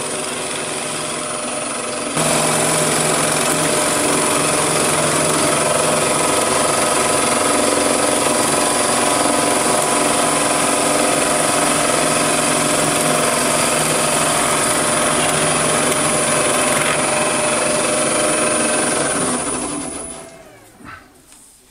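Wood lathe running while a home-made lathe knife cuts a very dry, hard piece of timber: a loud, steady rasping cut over the motor's whine, stepping up about two seconds in as the tool bites. Near the end the cutting stops and the lathe winds down with a falling whine.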